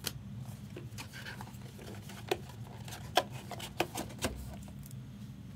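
Trading-card pack wrappers crinkling and rustling as packs are handled, with a scattering of sharp crackles, the loudest a few at about two, three and four seconds in.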